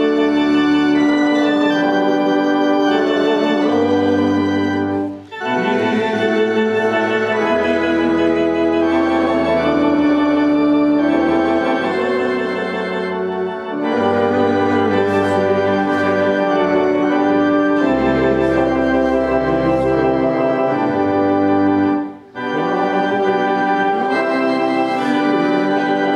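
Church organ playing held chords, moving from chord to chord, with two brief breaks between phrases: about five seconds in and again about twenty-two seconds in.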